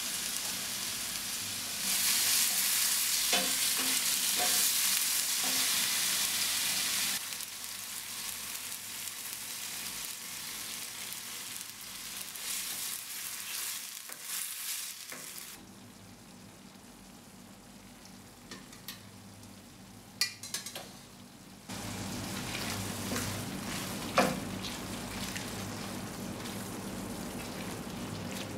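Halved cherry tomatoes and then tomato sauce sizzling in hot oil in a stainless steel frying pan, stirred with a wooden spoon that scrapes and knocks against the pan. The sizzle is strongest for about five seconds soon after the start, dies down to a quiet spell with a few sharp knocks, and picks up again near the end.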